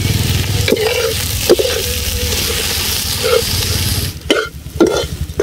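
Corn and carrot sizzling in a steel kadai while a spoon stirs in spice powders, with a few metal scrapes and clinks against the pan. About four seconds in the sizzle cuts off suddenly, followed by a few separate metal knocks.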